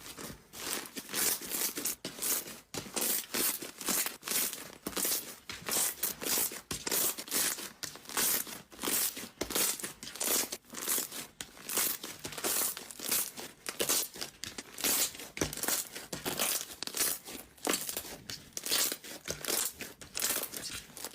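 Slime being squeezed and pressed: a continuous run of crackling, crinkling pops, several a second, typical of crunchy slime.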